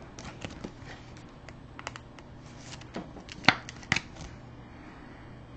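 Trading card being handled and slipped into a plastic sleeve and clear plastic card holder: light rustling with scattered small clicks, two sharper clicks about three and a half seconds in.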